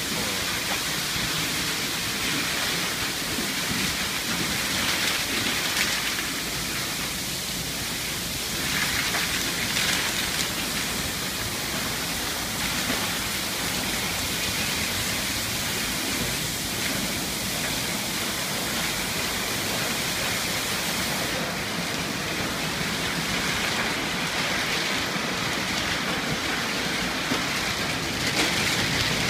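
Water spray in a Hanna-Sherman car wash tunnel hitting a car and the bay around it: a steady, rain-like hiss.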